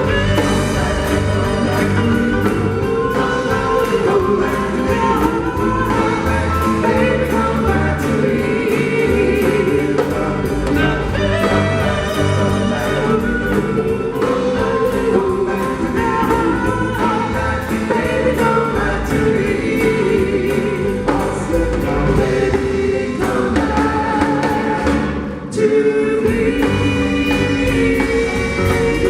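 A live band playing a song, with several voices singing together; the music breaks off briefly near the end and comes straight back in.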